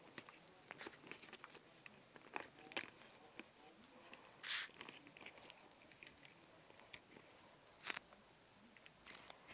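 Slime being squeezed and kneaded by hand: faint, irregular little clicks and pops as it squishes. A short hiss comes about four and a half seconds in.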